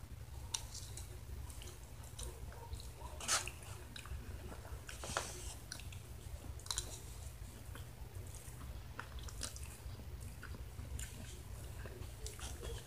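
A person chewing and biting into a cheese-covered enchilada close to the microphone: irregular wet mouth smacks and clicks, with a few louder ones about three and five seconds in, over a low steady hum.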